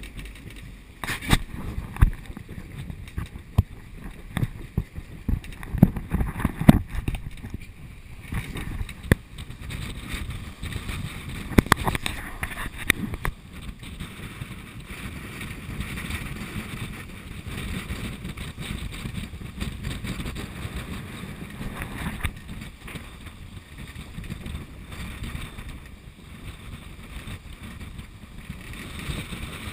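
Wind buffeting the microphone and rushing, breaking water from the wake of a sailing yacht in rough seas. Many sudden bangs and gusts come in the first dozen seconds, then it settles into a steadier rush.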